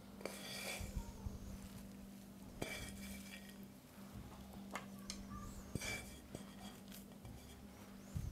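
Chopped walnuts poured from a bowl and scattered by hand over shredded kadaif pastry in a wide metal baking tray: faint rustling and pattering in a few short spells, with several light clicks and clinks. A steady low hum runs underneath.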